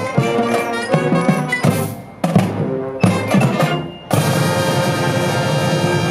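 Marching band of trumpets, clarinets, sousaphone, snare and bass drums playing a punchy passage of short accented chords and drum hits. From about four seconds in, the whole band holds one long loud chord.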